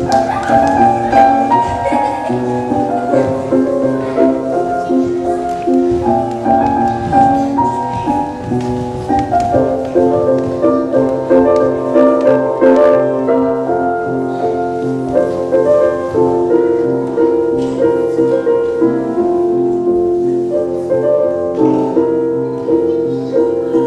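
Instrumental music with a piano-like sound: a stepwise melody over held chords.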